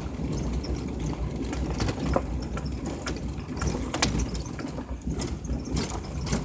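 Vehicle driving slowly over a rough dirt road: a steady low engine and tyre rumble with irregular rattles and knocks from the body as it jolts over bumps, the sharpest about two and four seconds in.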